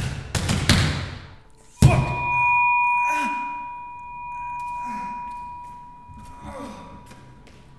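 A rapid run of hard knocks as hands strike a wall, then one loud hit. After it comes a steady high-pitched ringing tone, like tinnitus, under a man's short pained cries and groans.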